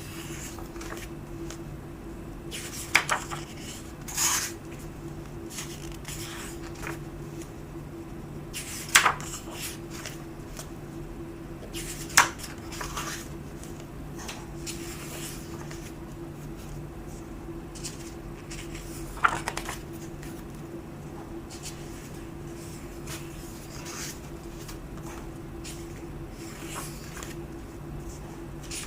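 Pages of a printed book turned by hand: about five crisp paper flips, with fainter handling rustles between them, over a steady low hum.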